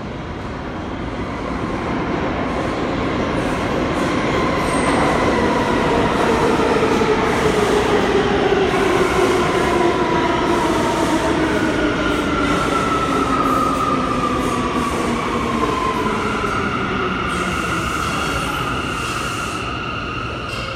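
New York City Subway train coming into the station, its motor whine falling slowly in pitch as it brakes, over a steady rumble of wheels on rail. Near the end the falling whine gives way to a steady high tone.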